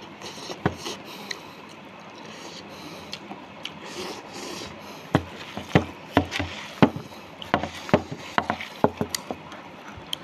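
Close-up hand-eating sounds: chewing, with irregular sharp clicks and knocks, most of them in the second half, as a hand mixes rice on a banana leaf.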